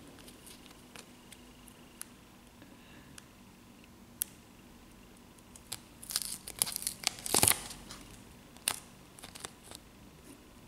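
Crinkling of a small clear plastic packet and a paper sticker being peeled off its backing, as scattered short crackles with a dense run of crinkling about six to seven and a half seconds in.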